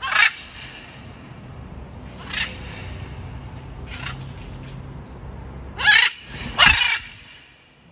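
Blue-and-gold macaw squawking in flight: about five short, harsh calls, the last two near the end loudest.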